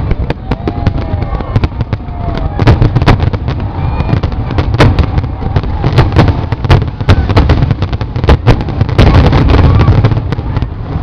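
Fireworks going off in rapid, irregular bangs and crackles, thickest in a dense volley about nine seconds in, with crowd voices underneath.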